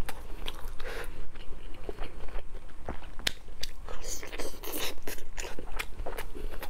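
Close-miked biting and chewing of glazed pork meatballs, with many irregular sharp clicks and crunches.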